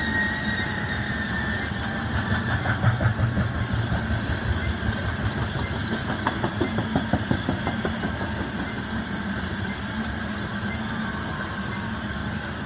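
Loaded coal cars rolling past on a freight train: a steady rumble of wheels on rail. Rhythmic clickety-clack of wheels over the rail joints grows louder in the first half and eases after about 8 seconds. A thin, steady high squeal from the wheels runs underneath.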